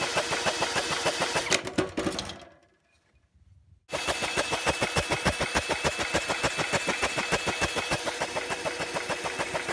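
Cordless drill spinning over an 8 hp Briggs & Stratton single-cylinder engine with its spark plug out, for a spark test, giving a fast, even pulse with each turn. It winds down and stops about two seconds in, then starts again about four seconds in and runs steadily.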